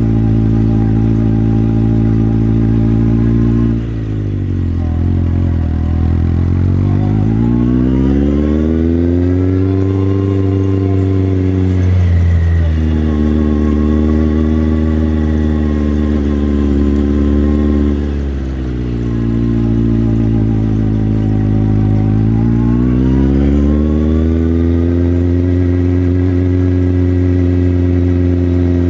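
Motorcycle engine heard from the rider's seat, running steadily, then twice easing off and slowing, about four seconds in and again near eighteen seconds, before accelerating back up with a rising engine note.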